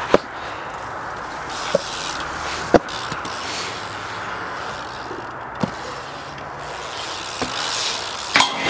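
BMX bike being ridden over rough ground: a steady rushing noise with four sharp knocks from the bike, the first near the start and the last a little past halfway.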